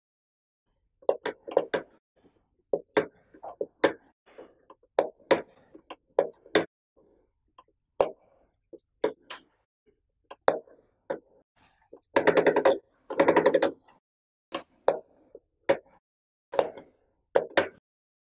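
Keycap of a 3D-printed, linear-actuator-driven button simulator being pressed over and over: irregular sharp clicks and knocks as the cap is pushed down and returns. About two-thirds of the way through, a rapid rattle of clicks lasts roughly a second and a half.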